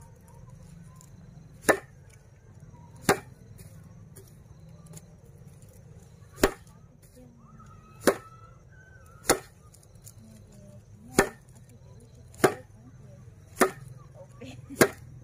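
A bundle of dried broom grass is whacked down hard onto a flat wooden board nine times, at uneven intervals of about one to two seconds, to knock the seeds off the flower heads during broom making.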